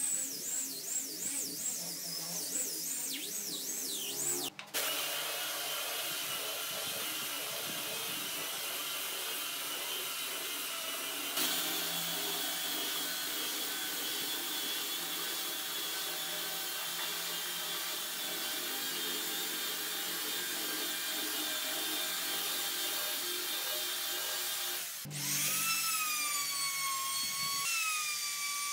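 Power-tool sanding of a wooden table top: a small handheld grinder with a sanding disc whines with a wavering pitch, then cuts to an electric belt sander running steadily. Near the end a handheld trim router whines as it spins up, twice.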